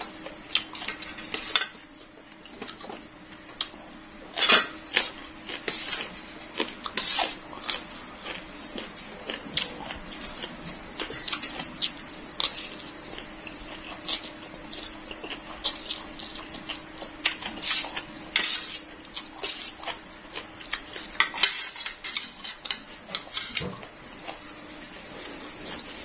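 Spoon and fork clinking and scraping on a stainless steel tray, with the mouth sounds of eating noodles, in short irregular clicks. Under it, a steady high chirring of crickets.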